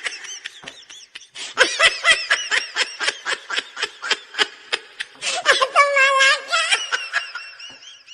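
Laughter sound effect: a fast run of short, high-pitched laughs, about five a second, breaking into a longer held laugh about six seconds in and ending in squeaky falling giggles.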